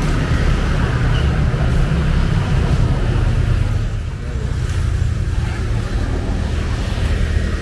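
A heavy engine running steadily at idle: a continuous low rumble with no rise or fall in speed.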